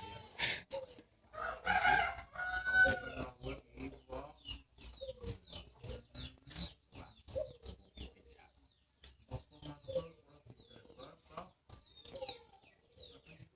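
A high-pitched chirp repeated steadily, about three times a second, for several seconds, then breaking into short runs of a few chirps. A louder, rougher animal call sounds about two seconds in.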